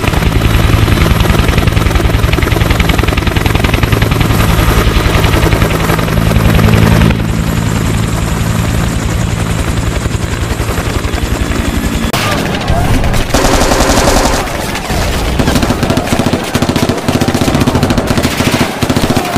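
Bell UH-1 Huey helicopter, its two-blade rotor beating in a fast even rhythm for the first several seconds, then bursts of machine-gun fire over the helicopter noise.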